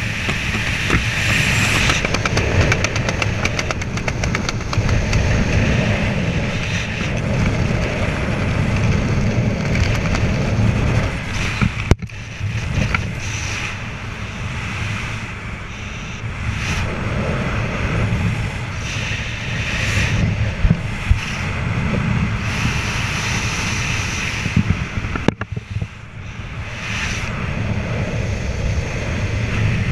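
Wind buffeting the microphone of a helmet-mounted camera during a parachute descent under an open canopy: a continuous low, noisy rush that swells and fades, with two sudden brief dips partway through.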